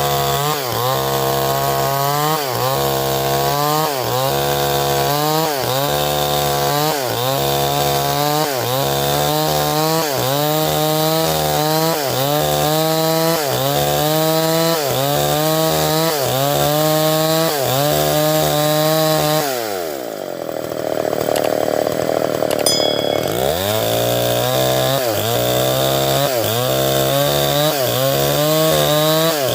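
Stihl 070 two-stroke chainsaw ripping lengthwise through a log, its engine note dipping and recovering about once a second as the chain is worked through the cut. About two-thirds of the way in, the engine drops to a low speed for about three seconds, then revs back up.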